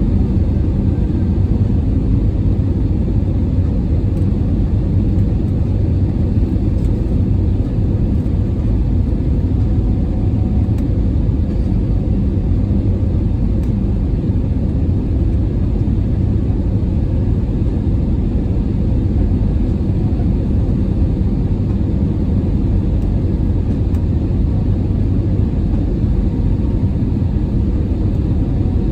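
Steady low rumble of an Airbus A320 in flight, heard from inside the passenger cabin: engine and airflow noise.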